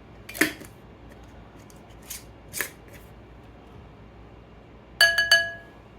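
A spoon handling a bowl: a few light clicks and knocks, then two sharp taps near the end that ring briefly with a clear tone, as the spoonful of thick ranch dressing is knocked off into the salad bowl.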